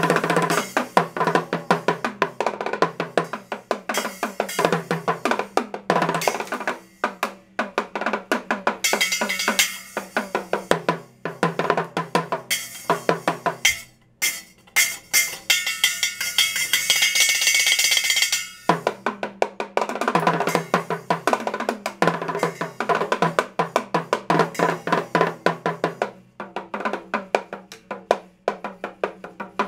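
Mini drum set played in a fast stick solo: quick runs of strokes on the small toms and a small cymbal. Around the middle the cymbal is kept ringing for a few seconds and then cut off sharply, before the drumming picks up again.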